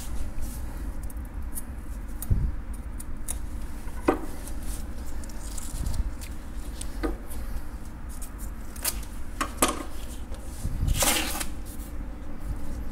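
The tough skin of a kawahagi (horse-face fish) being peeled off by hand: scattered short rips and clicks, with a longer rasping tear about eleven seconds in as the skin comes away.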